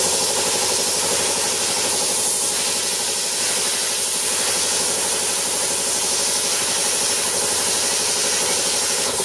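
Plasma cutter hissing steadily as it cuts steel plate at 40 amps, over a small 3 hp air compressor running with a steady hum. Both cut off suddenly right at the end when the circuit breaker trips, overloaded by the compressor and plasma cutter running at once.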